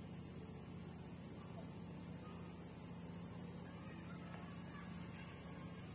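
Insects droning steadily at a high pitch, an unbroken chorus with no pauses.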